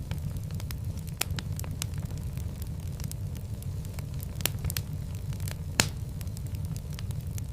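Wood fire burning in a fireplace: a steady low rumble of flames with irregular sharp crackles and pops, one louder pop a little before the end.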